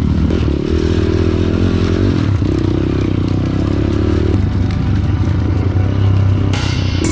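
Pit bike engine running under way on an off-road trail, its pitch stepping up and down a few times as the rider works the throttle and gears. Music comes in near the end.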